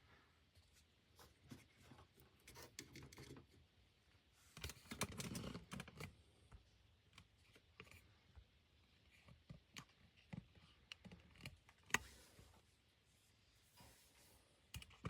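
Near silence broken by faint scattered clicks and light knocks, with a short stretch of busier handling noise about five seconds in.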